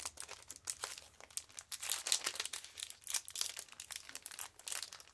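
Trading card packs and cards being handled: a quick, irregular, light crinkling and rustling, a little denser around the middle.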